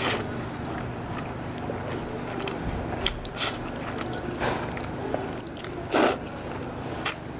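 A person slurping up a mouthful of jajangmyeon, black rice noodles in black bean sauce, and chewing. The slurps come as several short noisy bursts, the loudest and longest about six seconds in.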